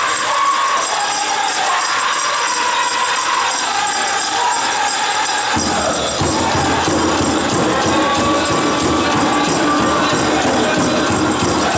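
Powwow drum group singing a chicken dance song in high-pitched voices, with the dancers' bells jingling steadily. About halfway through, the low drumbeat becomes much louder.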